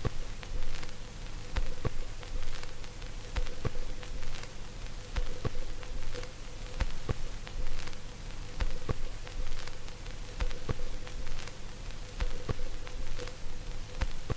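Irregular sharp clicks, about one to two a second, over a steady hiss with a faint steady hum.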